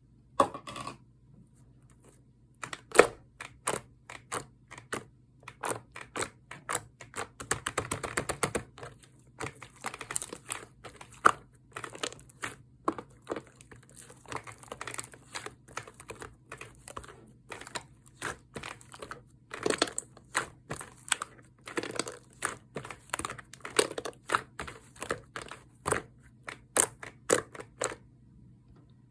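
Lava slime being squeezed and worked by hand, making irregular runs of sticky clicks and pops, a few of them louder.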